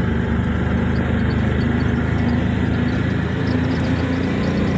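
Auto rickshaw's small engine running steadily as it drives along, heard from inside the open cab with road noise.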